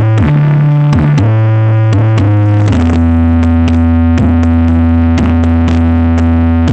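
Loud electronic dance music played through a large carnival sound-horeg system: deep, long-held synth bass notes that change about a second in and again a little before three seconds, with sharp beats over them.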